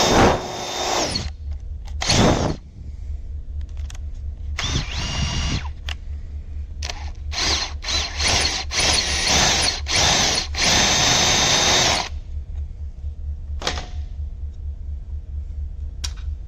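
Power drill running in reverse with a left-hand bit, drilling into a broken subframe bolt on a Yamaha R6 to back it out. It runs in several bursts, short stutters at first and a longer run of a few seconds near the end, with the motor's pitch shifting as the trigger is squeezed and eased.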